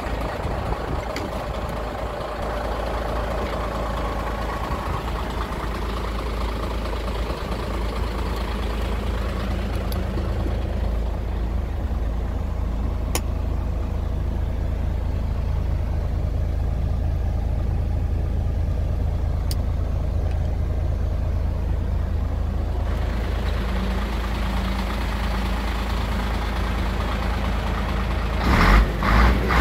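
DAF CF 85.400 truck's straight-six diesel engine idling steadily. Two short, loud low thumps come near the end.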